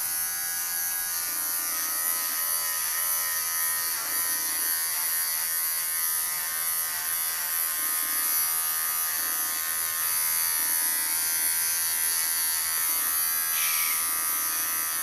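Cordless electric pet clippers running steadily while trimming the hair on a cocker spaniel's muzzle and chin, a continuous buzzing whine with a bright hiss. The pitch sags slightly now and then as the blade meets the coat.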